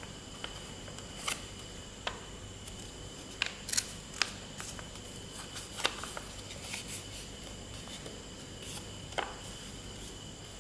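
A sheet of white paper being folded and creased by hand into a paper airplane: irregular sharp crinkles and taps as the paper is pressed and bent.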